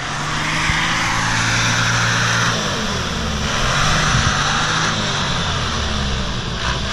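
Land Rover Defender 90's 3.0 TDI diesel engine running under steady load as the truck crawls up out of deep mud, a continuous drone that shifts in pitch a couple of times.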